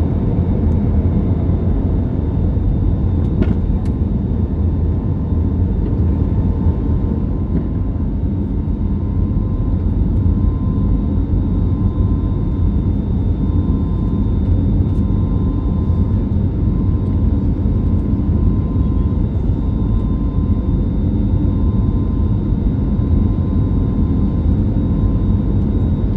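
Cabin noise of an Airbus A320neo at takeoff: the loud, steady roar of its CFM LEAP-1A turbofans and the rushing air, heard inside the cabin, with a faint steady whine above it.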